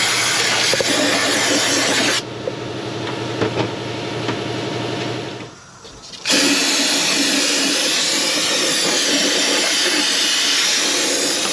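Aerosol brake cleaner spraying hard through its straw onto bare engine parts, a loud steady hiss. It eases off after about two seconds, nearly stops just before six seconds, then sprays steadily again.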